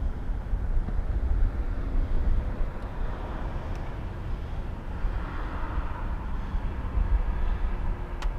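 Outdoor city ambience: a low, unsteady rumble of wind on the microphone under a wash of distant traffic that swells about halfway through, with one sharp click near the end.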